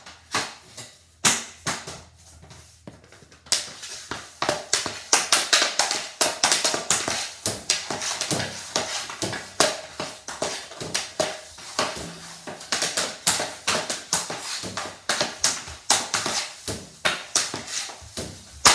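Hockey stick blade and pucks clacking on a hard floor as shots are taken: a fast, uneven run of sharp clicks and knocks, sparse for the first few seconds and then almost continuous.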